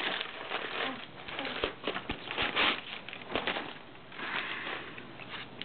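Packaging rustling and crackling in irregular bursts as a knife is unwrapped by hand.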